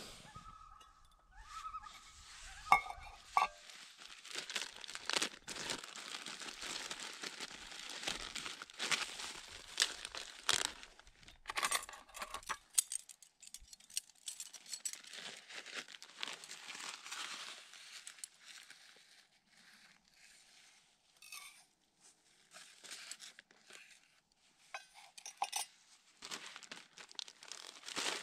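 Plastic food bags crinkling and rustling as they are handled, with a few sharp clicks of camp gear, busiest in the first half and sparser toward the end.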